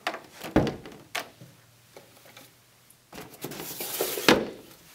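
Hard knocks and clunks of a soil density gauge and its hard plastic carrying case being handled as the gauge is set down inside the case, with a scraping rustle and a louder knock near the end.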